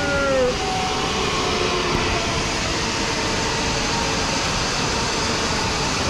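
Zipline trolley running along the steel cable, with wind rushing over the microphone during the ride: a steady, loud rushing noise.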